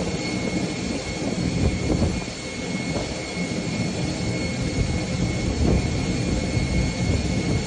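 Jet engines of a flydubai Boeing 737 running as the airliner ploughs through deep standing floodwater: a steady, continuous rushing noise with a faint high, even whine.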